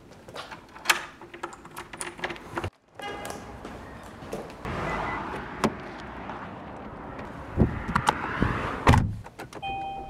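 Scattered clicks and handling, then a car door opened with rustling as someone climbs in, and the door shut with a thunk near the end. A car's electronic warning chime starts beeping just after.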